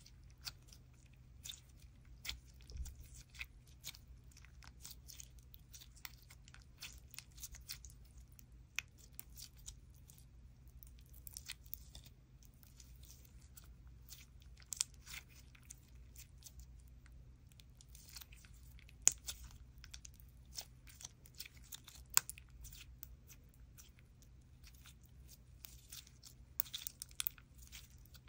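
Clear slime mixed with lipstick being kneaded, squeezed and stretched by hand: irregular sticky crackling and small pops, with a few louder pops in the second half.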